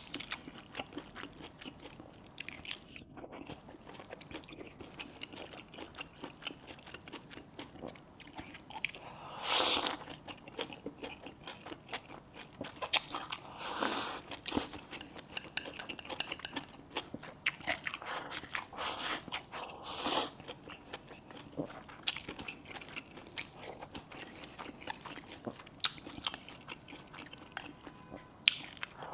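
Close-miked eating: a person chewing and biting mouthfuls of stir-fried wild chicken mushrooms, pork and rice, with wet mouth clicks throughout and a few louder bursts.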